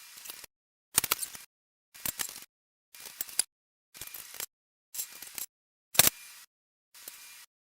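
Half-second fragments of workshop noise about once a second, each with sharp metallic clicks and knocks of hand tools on the parts of a motorcycle being taken apart, cut off by silence between fragments. The sharpest knock comes about six seconds in.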